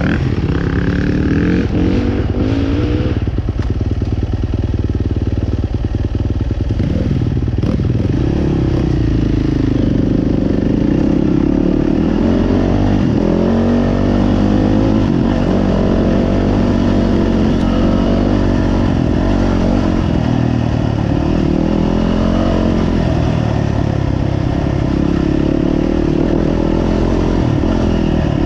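Several motocross bikes racing together, their engines revving up and down through the gears, loud and continuous.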